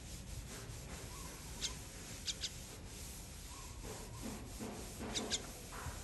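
Myna moving about on plastic shade netting: faint scratchy rustling, with a few short high squeaks, once and then in two quick pairs.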